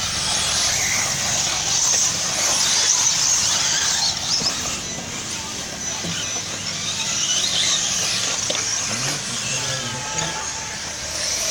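Several electric 4WD radio-controlled off-road buggies racing together. Their motors make a high-pitched whine that wavers up and down as the cars accelerate and brake.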